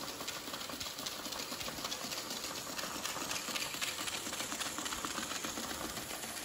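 Battery-powered Hexbug robot bugs scuttling across a hardwood floor: a steady, fast chatter of small plastic legs ticking on the boards.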